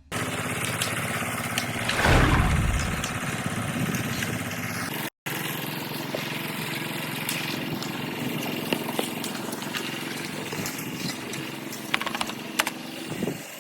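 An engine running steadily, cut off by a brief dropout about five seconds in, with a few sharp knocks near the end.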